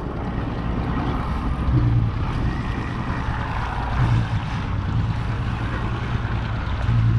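Fishing boat's engine running steadily under a low rumble, with wind and water noise on the microphone.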